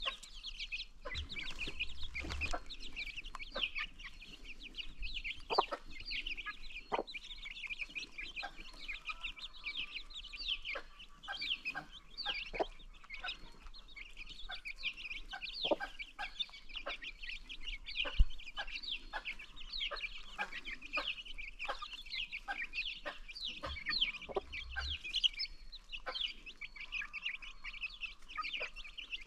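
Many baby chicks peeping without pause in a dense chorus of short, high, falling calls, with scattered sharp clicks and taps through it and two low thumps, one about two seconds in and one near the end.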